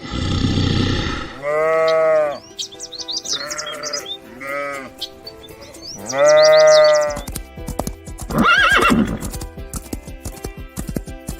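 A run of farm animal calls over steady background music: a rough noisy call at the start, then a drawn-out pitched call that rises and falls, heard four times, with high bird-like chirps between, and one more call about eight seconds in.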